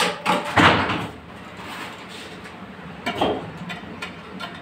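Tile-setting handling noises: two loud scrapes in the first second, then a shorter scrape about three seconds in as a large tile is lowered with a suction-cup lifter into a bed of tile adhesive.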